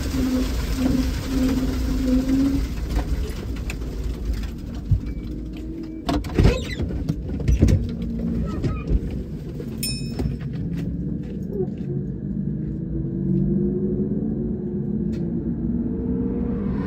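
Twin-turbo LSX V8 race car running on track, with several sharp bangs about six to eight seconds in; after that the sound loses its high end and turns lower and duller.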